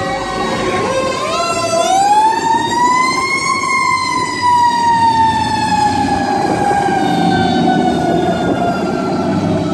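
Fire truck siren wailing as fire apparatus drive past: one long rise over a couple of seconds, then a slow, drawn-out fall in pitch, over the steady run of heavy truck engines and tyres.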